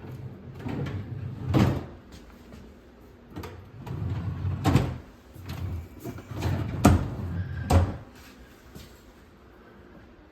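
Vanity drawers being slid open and pushed shut. Each slide rumbles and ends in a sharp knock, four knocks in all, the loudest about a second and a half in and again near seven seconds.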